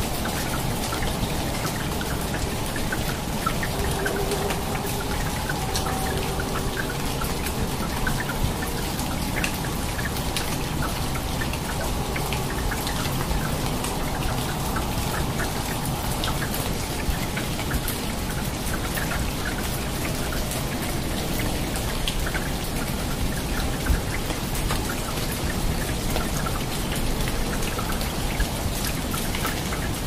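Steady rain falling on rainforest foliage, with many close drops striking leaves one by one over the even hiss of the downpour.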